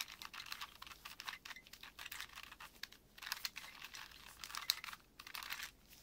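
4x4x4 Rubik's Cube being turned by hand through a sequence of moves: rapid, irregular runs of small plastic clicks and clacks as its layers snap round, with a brief pause near the end.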